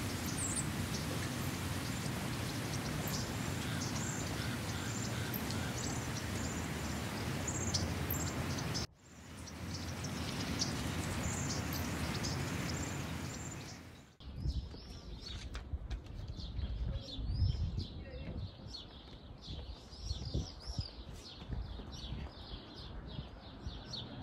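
Small birds chirping and twittering over a steady outdoor background hiss. The background drops away abruptly about halfway through, leaving dense chirping with a few low thumps.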